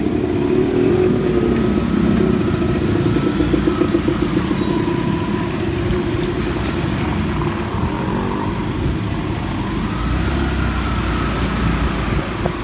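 A motorcycle engine running steadily as the bike rides along a wet street.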